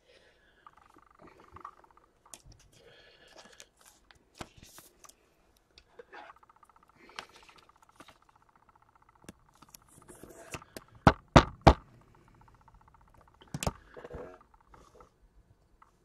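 Trading cards and clear plastic wrap handled on a tabletop: soft rustling and scraping, with three quick sharp clicks about eleven seconds in and one more a couple of seconds later.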